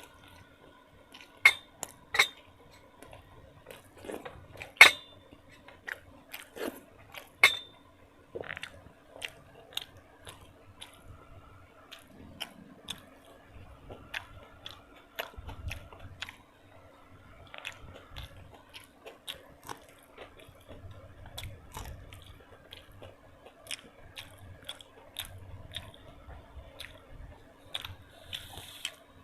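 Close-miked chewing and mouth sounds of a person eating, with many small wet clicks and soft thumps. A few loud, sharp clicks come in the first eight seconds, and a faint steady hum runs underneath.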